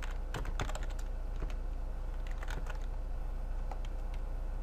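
Typing on a computer keyboard: quick runs of keystrokes, a burst in the first second and another about two and a half seconds in, with scattered single keys between, over a steady low hum.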